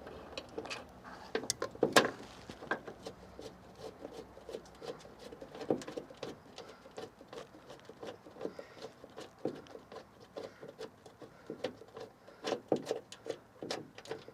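Irregular light clicks, taps and rattles as the loosened door-check bolts are turned out by hand and the old door check is worked free inside the car door, with a sharper knock about two seconds in.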